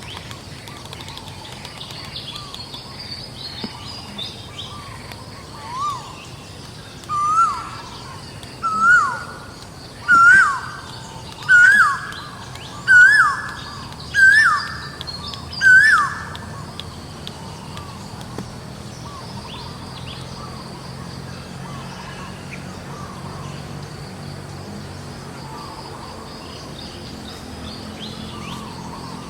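A bird calling over and over, about eight short rising-then-falling calls roughly a second and a half apart, growing louder, then stopping. Under it lies a steady outdoor background.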